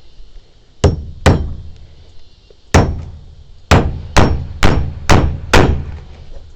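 Hand hammer striking a wooden frame, eight blows: two close together, one on its own, then five in a steady run about two a second.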